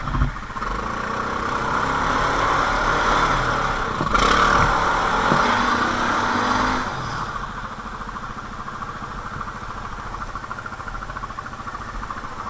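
Quad (ATV) engine revving hard under load as it tows another quad, after a sharp knock at the start, then easing back to a steady idle about seven seconds in.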